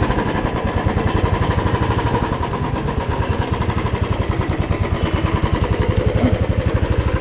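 Royal Enfield Thunderbird 350X's single-cylinder engine running, just after being started, with a fast, even exhaust thump.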